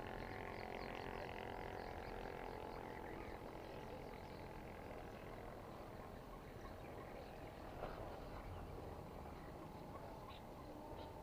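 Faint wetland chorus of frogs calling steadily, with a few short bird chirps mostly in the first few seconds.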